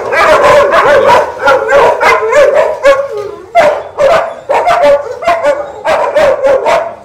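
Several kennelled dogs barking at a person passing their pens, a lot of noise. The barks overlap densely at first, then thin out after about three seconds into separate bursts with short gaps.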